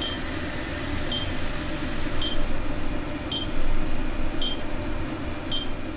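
Short, high electronic beeps repeating about once a second from the dog door's motion-sensor alarm, signalling that a dog is waiting at the door. A steady low background hum runs underneath.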